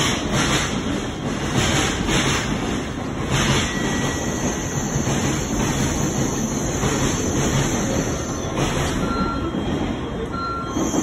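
Tokaido Shinkansen train pulling into the platform and slowing, a steady rumble and rush with a regular whoosh about every half second that spaces out and fades as it slows. A couple of short high squeals near the end.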